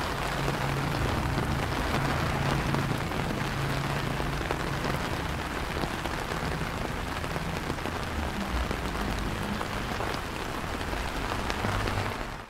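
Steady rain falling on wet paving, a continuous hiss dotted with many small drop ticks; it cuts off suddenly at the very end.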